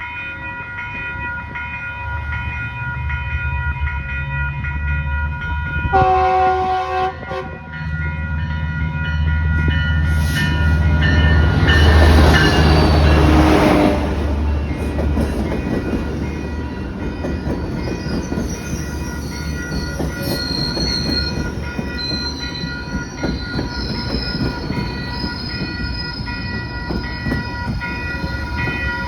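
Metrolink F125 diesel locomotive arriving with its commuter train: one horn blast of about a second and a half roughly six seconds in, then the locomotive passes loudly with a deep engine rumble and rail noise, loudest around halfway through. As the train slows, high thin squeals from the wheels run under the steady rumble near the end.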